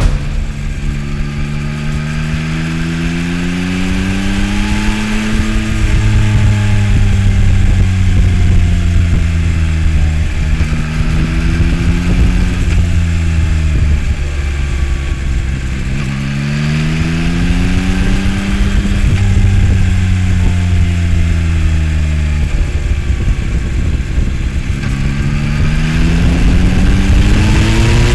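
2022 Yamaha XSR900's inline three-cylinder engine on the move, accelerating and easing off in turn: its pitch climbs and falls back four times.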